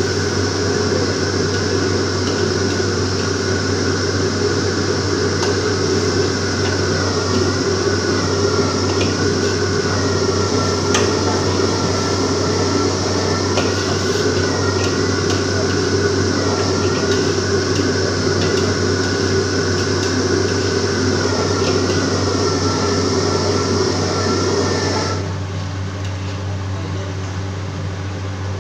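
Stir-frying in a wok over a commercial gas wok burner: a loud, steady burner and extractor-hood noise with food sizzling, and light scrapes and clicks of a metal spatula on the wok. About 25 seconds in, the higher part of the noise cuts off, leaving a lower steady hum.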